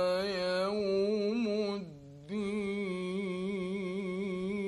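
Male Quran reciter chanting in the melodic mujawwad style, drawing a syllable out into long ornamented notes. The voice breaks off briefly about two seconds in, then holds one long note with a regular wavering ornament.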